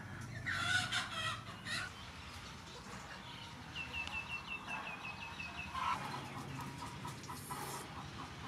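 Chickens clucking and calling, with a quick run of about ten high chirps in the middle.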